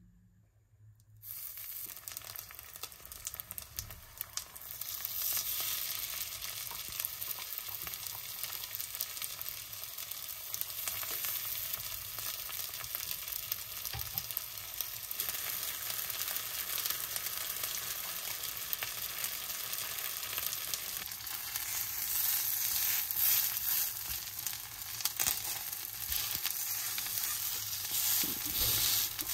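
Tofu-and-mushroom burger patties frying in oil in a nonstick pan: a steady sizzle with many small pops. It starts suddenly about a second in, grows louder a few seconds later, and cuts off suddenly at the end.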